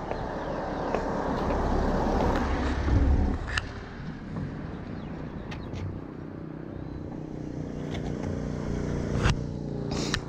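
Road traffic passing close by, with one vehicle swelling to its loudest about three seconds in. Later a motor runs steadily, and there are a few sharp clicks.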